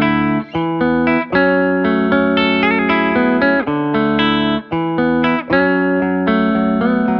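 Background music led by plucked guitar, with chords changing every half second or so.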